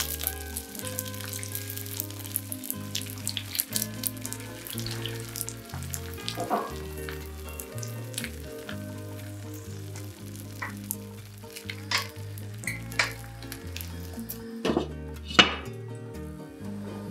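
Frozen potstickers frying in oil and water in a nonstick pan, sizzling steadily with many sharp pops as beaten egg is poured in around them; the loudest pops come near the end.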